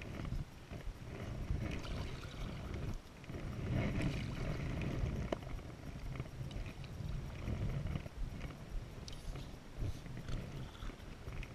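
Paddled small boat moving over a shallow, rippling river: water splashing and trickling around the hull and paddle, under a low, uneven wind rumble on the microphone.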